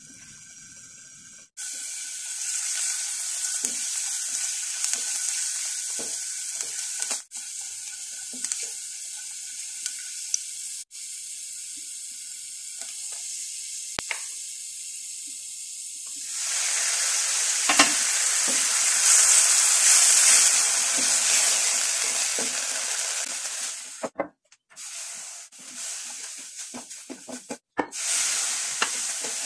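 Minced garlic sizzling in hot fat in a nonstick frying pan, with a steady hiss that breaks off briefly several times. About sixteen seconds in the sizzle grows louder and fuller, and near the end a silicone spatula scrapes and knocks as it stirs a flour dough in the pan.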